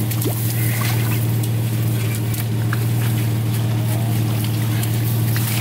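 A 4WD engine idling with a steady low hum, while a shovel scrapes and digs wet mud around a bogged tyre in scattered short scrapes and clicks.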